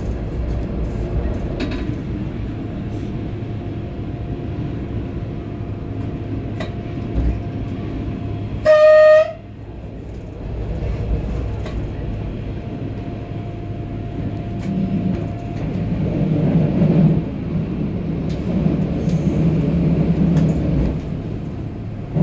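Regional passenger train running, heard from inside just behind the driver's cab: a steady rumble of the running gear. About nine seconds in, one short, loud blast of the train's horn.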